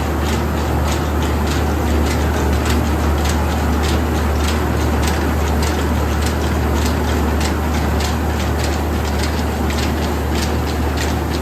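Rice husking mill machinery running: a loud steady low hum with a fast, regular ticking rattle over it.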